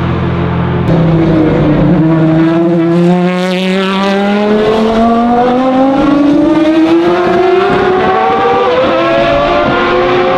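Racing prototype engines at full throttle on the straight, one of them the Lola-Aston Martin B09/60's V12. One engine note climbs steadily in pitch for several seconds as the car accelerates, then levels off, with other engines under it.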